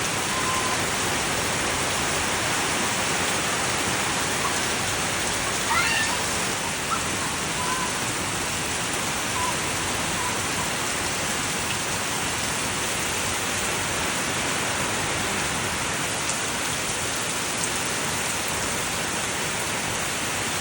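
Steady rain falling, an even hiss throughout. A few short, faint high-pitched sounds break through, the loudest about six seconds in.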